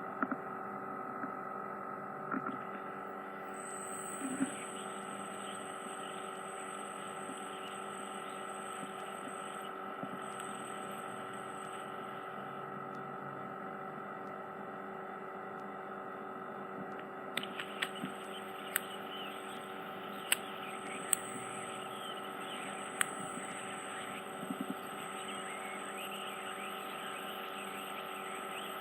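Steady hum and hiss of an ear microsuction machine running, with a few sharp clicks and crackles between about 17 and 25 seconds in as ear wax is drawn into the suction tip.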